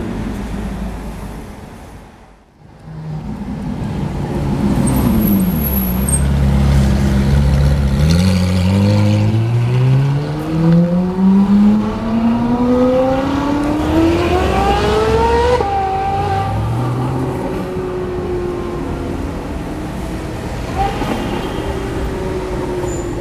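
Ferrari 458 Italia's 4.5-litre V8 through a Novitec Rosso aftermarket exhaust, very loud. It rumbles low, then revs up in one long climb to high rpm, drops sharply about two-thirds of the way through, and runs on at a steadier pitch with another brief rise near the end.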